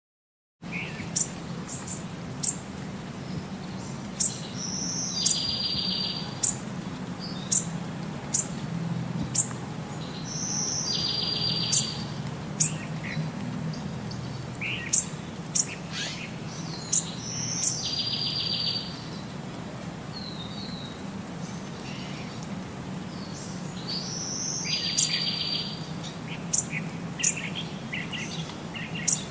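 Small songbirds chirping, with short high calls scattered throughout and a buzzy trill of about a second that comes back about every six seconds, over a low steady hum.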